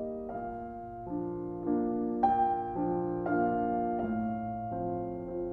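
Solo piano music at a slow, even pace, a new note or chord struck about every half second.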